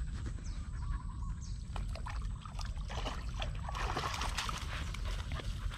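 A dog wading in a shallow pond, water sloshing and trickling around its legs, busiest about four seconds in, over a steady low rumble.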